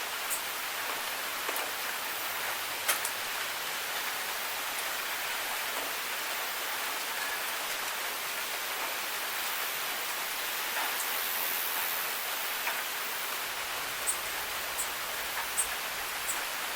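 Steady rain, an even hiss, with scattered sharp drops ticking, a cluster of them near the end.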